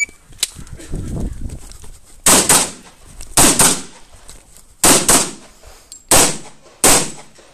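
Pistol shots fired in quick pairs: three close double-taps about a second apart, beginning about two seconds in, then two more single shots near the end. A shot-timer start beep cuts off at the very start, and some low handling noise comes before the first shot.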